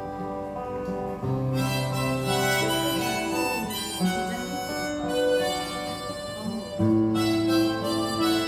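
Instrumental break of a song: a harmonica plays a melody in held notes over acoustic guitar accompaniment, with no singing.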